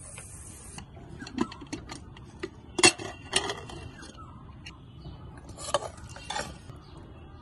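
Aluminium pressure cooker being opened: the metal lid and its clamp bar clank and clink against the pot as the lid is worked free, with the loudest knock about three seconds in. Near the end a ladle clinks against the pot while stirring. A thin high hiss stops within the first second.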